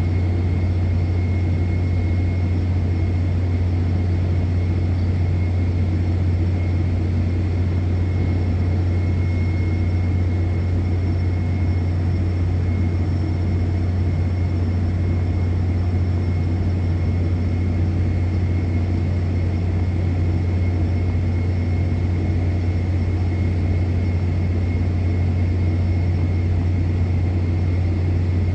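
Steady, unchanging low drone of an offshore oil and gas platform, with a faint high whine held at one pitch over it.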